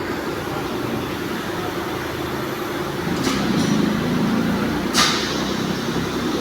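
CNC glass cutting machine running, a steady mechanical hum that grows a little louder about three seconds in, with a sharp click about five seconds in.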